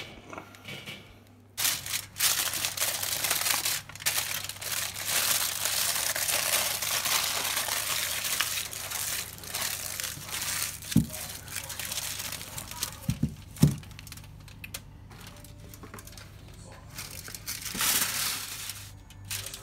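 Aluminium foil crinkling as it is pulled out and handled: a long stretch of dense crackling, then a few dull knocks, and a shorter crinkle near the end.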